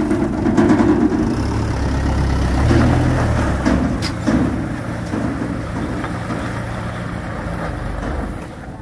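Light dump truck's diesel engine running as the truck moves off, fading toward the end.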